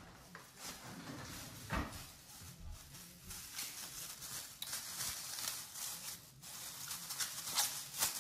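Soft handling noises: a string of small clicks, crackles and rustles, with a louder knock about two seconds in.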